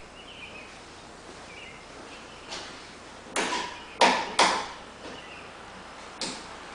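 Handling noise from hands working at the model aeroplane's fuselage box: five short knocks and scrapes over a few seconds, the loudest about four seconds in, over faint bird chirps.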